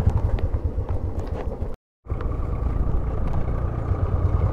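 Motorcycle engine running while riding, a quick steady low thumping. The sound drops out completely for a moment about two seconds in, then resumes.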